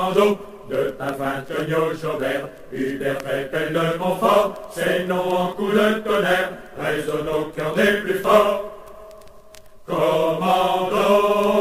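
Background vocal music: voices chanting in a sustained, chant-like style. The voices drop out for about a second and a half, then come back in.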